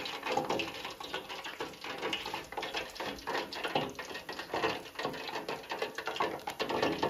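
Irregular crackling and small pops from freshly fried boneless chicken and the hot oil beneath it as the lifted fryer basket drains.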